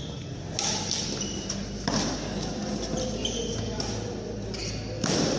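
Badminton rackets striking a shuttlecock during a rally: a few sharp hits, the loudest about two seconds in and near the end, echoing in a large hall.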